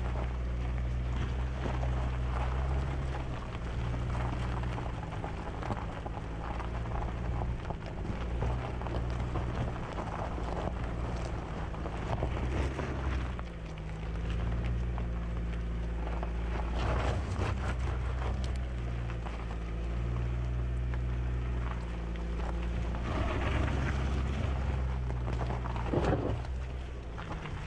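Toyota RAV4 TRD Off-Road driving slowly over a rocky dirt trail, heard from beside the front wheel: the tyres crunch and pop over gravel and stones, with several louder crunches, over wind rumble and a low steady drone.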